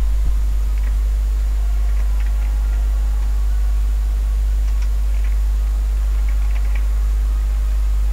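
Steady low hum, with faint light clicks scattered irregularly over it.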